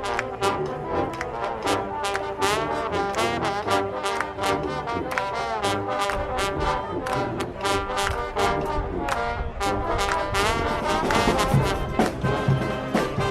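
Music led by brass instruments over a steady percussive beat.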